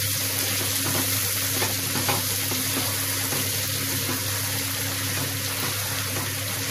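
Brinjal and potato masala sizzling steadily in a hot pan just after a little water has been poured in, with a few faint clicks of a stirring spoon in the first two seconds.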